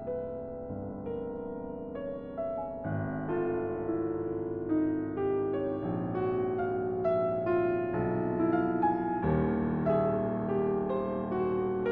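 Grand piano played with the left hand alone: sustained notes and chords, with new low chords struck about a second in, about three seconds in, and again near nine seconds in.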